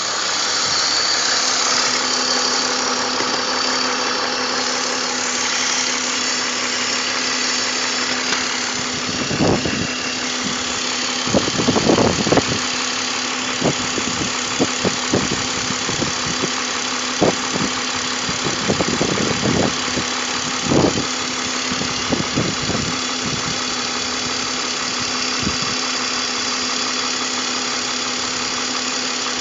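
BMW M54 straight-six engine idling steadily, with a scattering of short knocks and thumps through the middle stretch.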